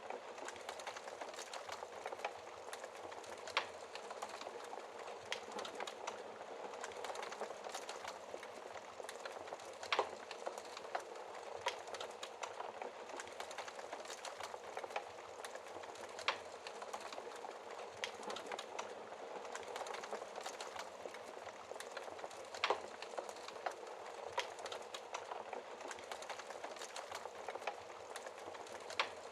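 Wood fire burning behind a glass fireplace door: a steady hiss with irregular crackles and sharp pops, the loudest a few seconds apart.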